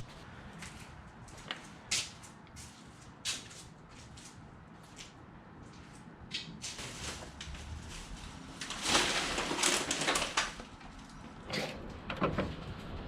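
Motor oil being poured from a jug through a funnel into the engine's fill neck. Scattered knocks and clicks of the jug and funnel are heard, with a louder stretch of pouring noise about nine seconds in.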